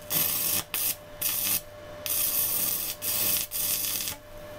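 Stick-welding arc from an MMA 250 A inverter welder set to 250 amps, burning in loud stretches broken by several short gaps as the electrode blows a hole straight through thick steel box section. The arc stops about four seconds in.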